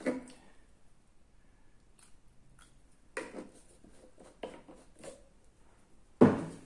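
Bottles, a plastic cup and a stirring stick being handled on a wooden workbench while turps is added to an oil finish: a handful of short knocks and clunks, the loudest just before the end.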